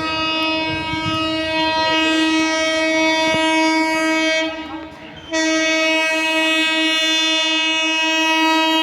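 Indian Railways locomotive horn sounding two long, steady blasts: the first lasts about four and a half seconds, then after a brief break a second blast runs about three and a half seconds.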